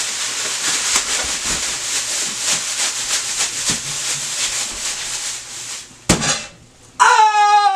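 Chicken pieces being shaken in a bag of seasoned flour: a rhythmic rustling shake that stops about six seconds in, followed by a single click. Near the end a steady pitched tone with many overtones starts and holds.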